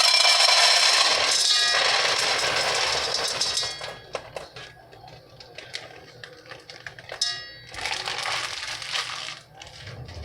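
Dry brown rice fusilli pasta pouring from its bag into a pot, a dense rattle of pieces hitting the pot for the first few seconds, then a few scattered clinks and a second, shorter pour near the end.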